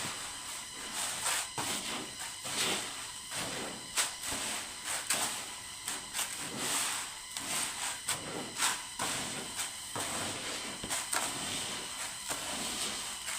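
Jhato, a hand-turned stone quern, grinding maize: a continuous gritty rasp of stone on stone with a knock about every half second to second as the upper stone is turned round.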